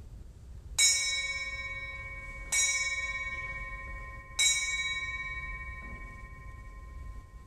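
A bell struck three times, about two seconds apart, each stroke on the same note and ringing on with a long, slowly fading tone.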